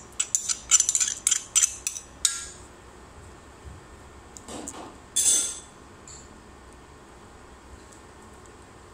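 Spoon clinking repeatedly against a stainless steel cooking pot, about a dozen quick metallic taps over the first two seconds as spice paste is knocked off into the pot, then one more clink about five seconds in.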